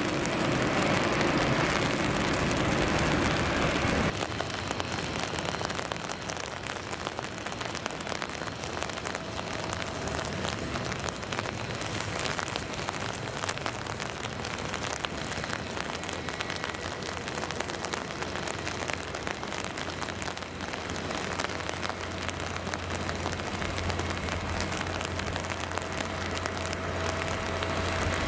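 Heavy rain hissing steadily over the rumble of an Airbus A380's four jet engines. The engine noise is louder for the first few seconds and drops off suddenly. Near the end a low hum builds as the engines spool up for the takeoff roll.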